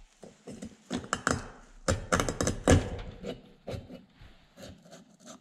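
Irregular clicks and knocks of a piston and piston ring being worked by hand into a 125 cc pit bike cylinder bore, with the loudest knock about three seconds in. The ring is being seated in the bore to check its end gap.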